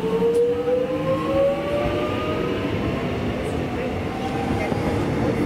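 Melbourne suburban electric multiple unit accelerating away from the platform. Its traction motors give a whine that climbs steadily in pitch for about the first two seconds, then fades into the steady rumble of the wheels on the rails.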